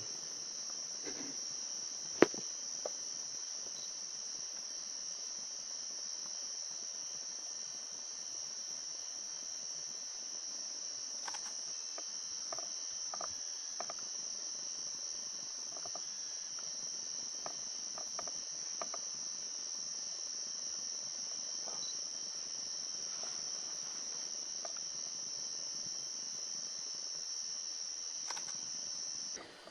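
A steady, unbroken high-pitched insect chorus, typical of crickets trilling. A single sharp click sounds about two seconds in.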